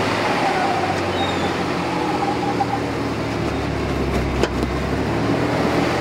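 Lifted Chevy S-10 pickup's engine running at low speed as the truck crawls over rocks, with one sharp knock about four seconds in.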